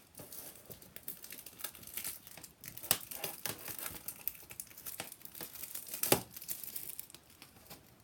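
Plastic shrink wrap crinkling and tearing as it is pulled off a Blu-ray case, a steady crackle with two sharper snaps, one about three seconds in and one about six seconds in.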